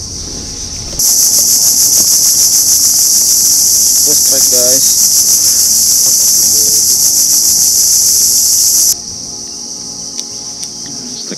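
A loud, high, rapidly pulsing insect buzz that starts suddenly about a second in and cuts off a couple of seconds before the end, over a fainter steady high insect hum that runs throughout. The sound has the abrupt start and stop typical of cicadas in riverside vegetation.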